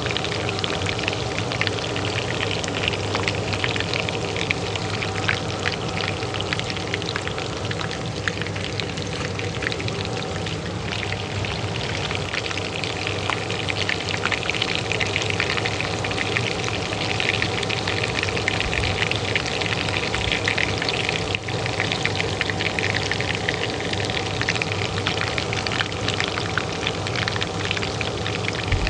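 Oil frying in a pan with a dense, steady crackle, over the constant hum of a kitchen range hood fan.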